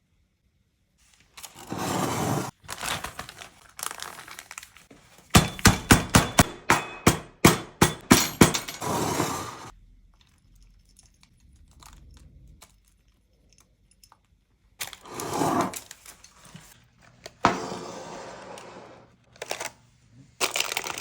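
Kitchen food-preparation sounds: bursts of rustling and scraping, with a quick run of sharp knocks or clicks, about four a second, in the middle.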